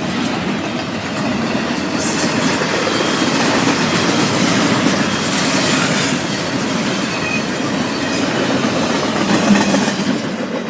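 Norfolk Southern freight cars rolling past, steel wheels rumbling and clacking over the rail joints. Higher wheel noise swells twice, about two seconds in and again around five to six seconds.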